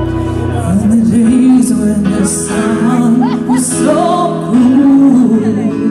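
Live rock band playing, with a woman singing into the microphone over it.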